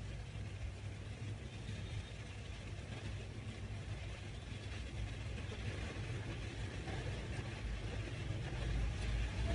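A steady low rumble with a faint hiss over it, a little louder near the end.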